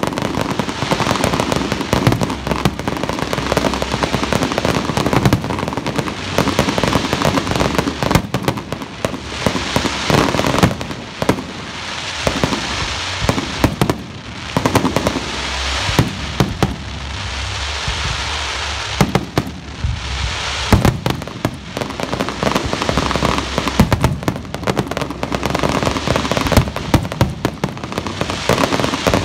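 Fireworks display: a dense barrage of aerial shells bursting in quick, overlapping booms, with continuous crackling. The bangs thin out for a few seconds about two-thirds in, leaving mostly crackle, before the barrage builds again.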